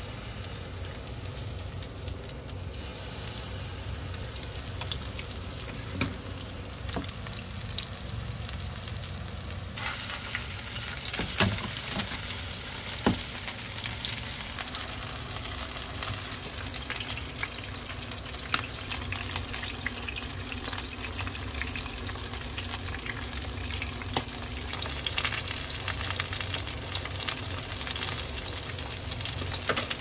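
Korean pancake batter (kimchi-jeon and a squid and green-onion pajeon) sizzling in hot oil in a non-stick frying pan, a steady frying hiss that grows louder about ten seconds in. A few sharp clicks of a metal utensil against the pan come through it.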